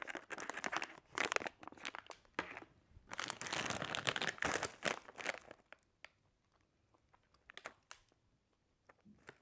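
Plastic snack packets crinkling as they are handled: crackling in the first couple of seconds, a denser stretch from about three to five seconds in, then only a few light rustles.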